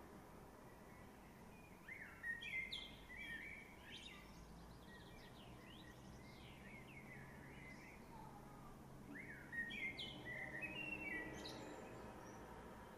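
A blackbird singing faintly in two separate phrases of fluting, warbling notes: one about two seconds in, another about nine seconds in, over a quiet outdoor background.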